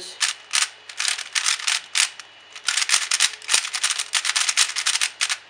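A YJ YuLong 3x3 plastic speed cube being turned by hand for its first turns out of the box: quick plastic clicks and clacks as the layers snap round. The turns are scattered at first, then a dense flurry of clicks follows from about halfway.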